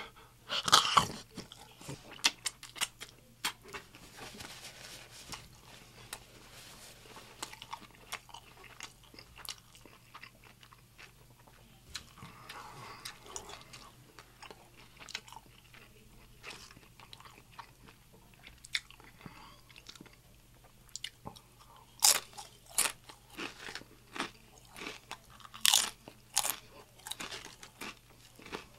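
Close-miked eating: a bite into a crisp fried birria taco dipped in consomé, with loud crunching about a second in, then softer chewing. Loud crunches come again twice near the end.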